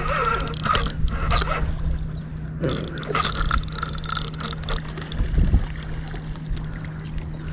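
Spinning fishing reel being wound in, its gears clicking and whirring in irregular runs over a steady low hum.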